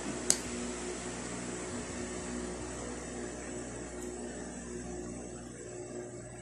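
Steady mechanical hum and hiss with a few level tones, broken by one sharp click about a third of a second in.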